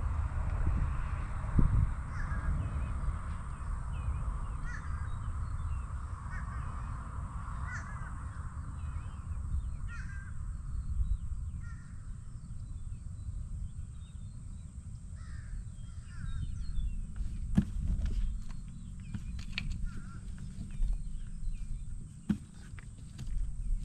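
Birds calling repeatedly over a low steady rumble, with a few sharp clicks in the second half.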